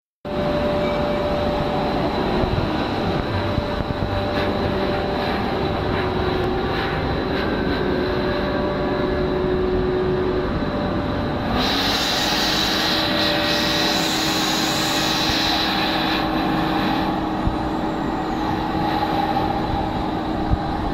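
Polycarbonate hollow sheet extrusion line running: a steady mechanical hum with several constant tones from its motors. A higher hiss joins for several seconds about halfway through.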